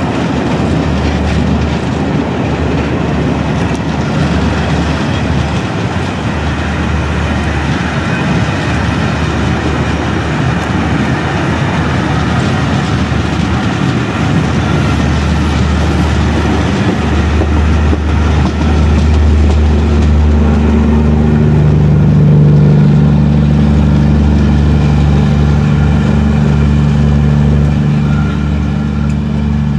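A steam-hauled passenger train, LNER Peppercorn A1 Pacific 60163 Tornado and its coaches, rolling past close by as it pulls away: a steady rumble and clatter of wheels on rail. A low steady drone joins about twenty seconds in and grows louder.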